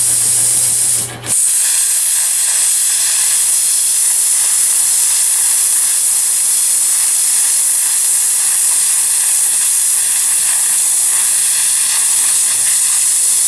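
Hypertherm Powermax45 plasma cutter cutting steel plate: the torch's arc and air jet give a loud, steady hiss, with a brief break about a second in.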